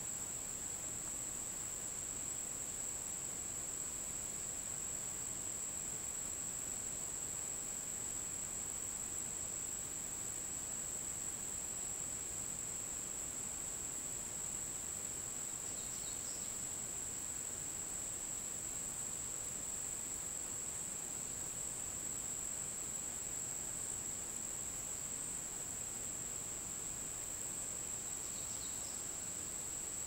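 A chorus of insects (crickets or cicadas) making a steady, unbroken high-pitched drone. Two brief faint chirps come through about halfway and near the end.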